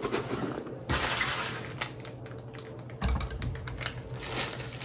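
Handling noises as a rifle is set on a weighing scale: scattered clicks and rustling, with a soft thump about three seconds in.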